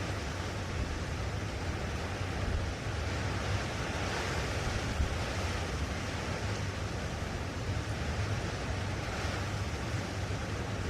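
Blustery hilltop wind: a steady rushing with a low rumble underneath, swelling briefly about four seconds in.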